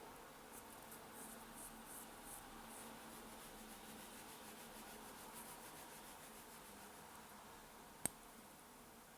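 Faint, rapid, evenly spaced ticking from a Forsining automatic watch's mechanism, about six ticks a second. One sharp click comes about 8 seconds in.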